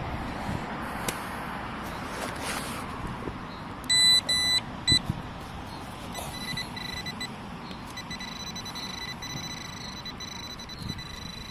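Metal detector beeping: a few short, loud beeps about four seconds in, then fainter repeated beeps of the same high tone, over scrapes and knocks of a spade cutting into turf and soil.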